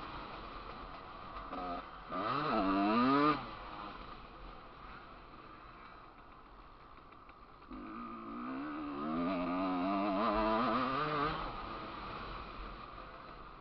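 Motocross dirt bike engine heard from a camera riding on the bike: the throttle is opened twice, a short rising rev about two seconds in and a longer, wavering one from about eight to eleven seconds in, with the engine falling back to a quieter, lower run between and near the end.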